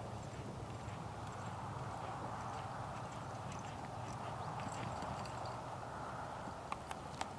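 Horse hoofbeats over a steady background hiss, with a couple of sharp clicks near the end.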